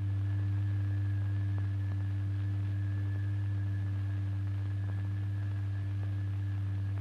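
Steady low electronic sine-like tone, one held pitch with a fainter higher overtone: the test frequency from a tone generator that sets the fluid vibrating.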